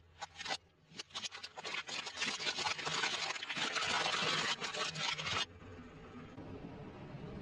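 Car tyre crushing clear plastic cups full of water beads: a few sharp cracks, then a dense run of crunching and popping plastic that stops abruptly about five and a half seconds in, leaving a quieter steady background.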